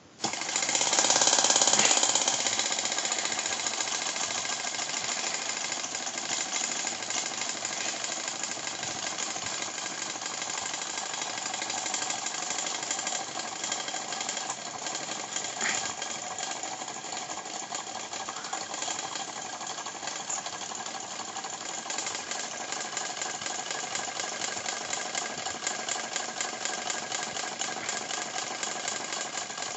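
Small kit-built Stirling engine made from an empty can, running with a fast, steady mechanical clatter. It starts suddenly and is loudest for the first couple of seconds, then settles to an even rattle.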